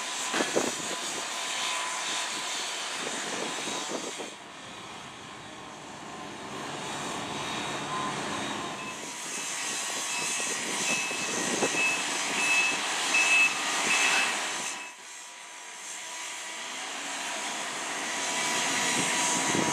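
Outdoor rushing background noise of a construction area, rising and falling, with a faint high beep repeating about twice a second in the middle.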